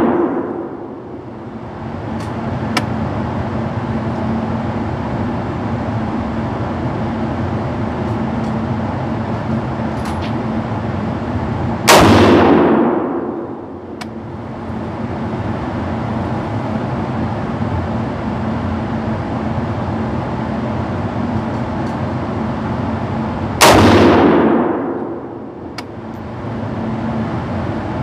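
Two rifle shots from a Loki Weapon Systems AR-15 with an 18-inch .223 Wylde barrel, firing 77-grain match ammunition, about twelve seconds apart, each ringing out briefly down an indoor range. A steady hum fills the gaps between shots.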